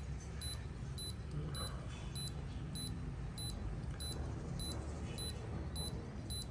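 Fingertip pulse oximeter giving a short high pulse beep with each detected heartbeat, about every 0.6 s, a rate of roughly 100 a minute that matches the pulse reading on its display.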